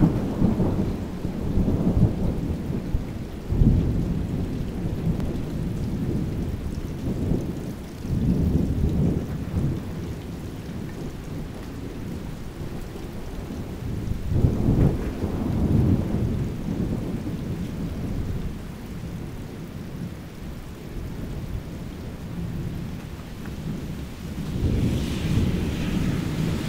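Thunder rumbling again and again over steady rain, with a sudden crack about four seconds in and further rolls near the middle and near the end.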